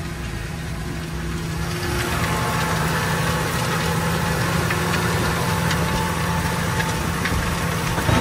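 Tractor engine running steadily under load as it pulls a disc harrow through wet soil, with the noise of the discs working the ground. The sound grows louder about two seconds in.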